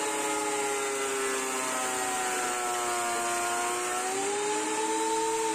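JIB 22139 thickness planer's 1.8 kW motor and cutterhead running with a loud whine while it takes a deep cut of about 1.6 mm off an ash board. The pitch sags in the middle under the load of the cut and rises again near the end as the board clears the knives.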